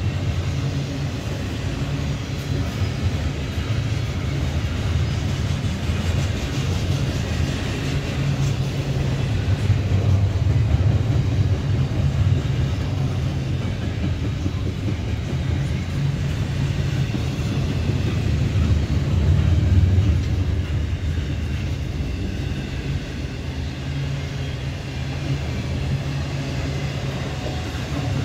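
Double-stack intermodal freight train's loaded well cars rolling past: a steady low rumble of steel wheels on rail that swells and eases a little as the cars go by.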